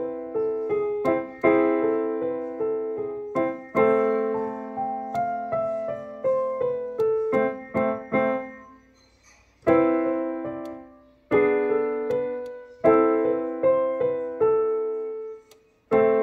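Digital piano playing an allegretto: phrases of melody over held lower notes, with short breaks between phrases. About nine seconds in the sound fades almost to silence before the next phrase begins.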